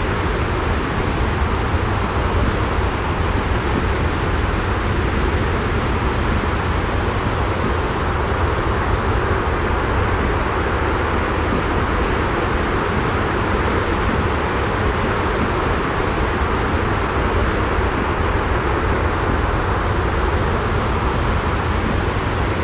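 Steady sleep white noise: an even hiss over a deep, constant rumble, unchanging throughout.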